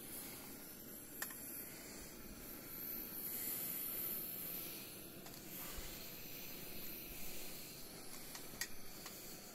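Footsteps and handheld camera handling noise from someone walking through a cave passage, over a steady hiss, with a sharp click about a second in and a couple more near the end.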